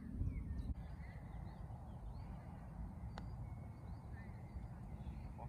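Birds chirping and calling over a steady low wind rumble on the microphone, with one faint click about three seconds in.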